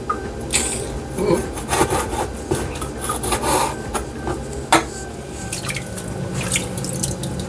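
Raw oxtail pieces being cleaned by hand: irregular scraping and rubbing with small knocks and a few wet sounds.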